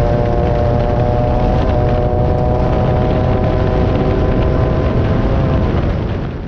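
Class 9 off-road race buggy's VW air-cooled engine running hard at a steady pace, heard from on board with heavy rumble from the car. The sound fades away right at the end.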